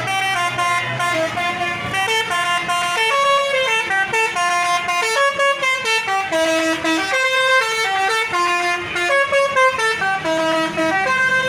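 Bus telolet horn (a basuri multi-tone horn) playing a fast melody, its loud tones stepping from note to note several times a second.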